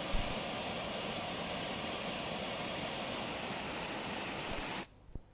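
Steady rushing hiss with no pitch or rhythm, cutting off abruptly near the end.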